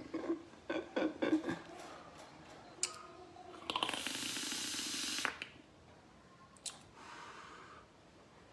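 A man chuckles briefly, then takes a drag on a pod vape: a loud hissing draw of about a second and a half, followed a couple of seconds later by a fainter hiss as he exhales the vapour.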